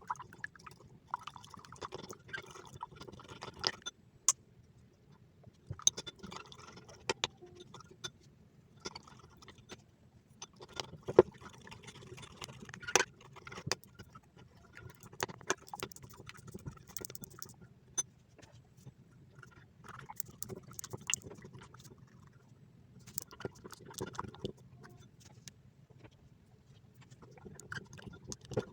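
Sticky homemade slime being mixed and squished, with wet clicking and smacking sounds coming in bursts of a second or two and short pauses in between.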